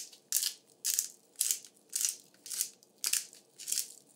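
Hand-twisted pepper grinder grinding peppercorns: a crunching rasp with each twist, about two twists a second.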